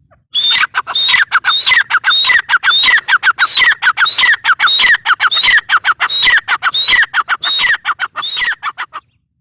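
Grey francolin (teetar) calling: a loud, fast series of shrill notes repeated about twice a second. It starts just after the beginning and stops abruptly near the end.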